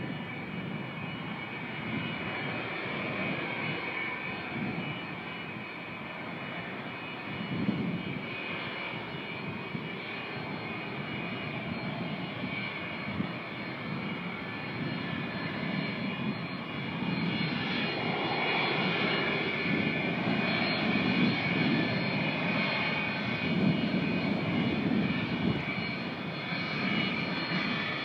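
McDonnell Douglas MD-83 freighter's rear-mounted Pratt & Whitney JT8D turbofans running at taxi power: a steady high whine over a low rumble, getting louder in the second half.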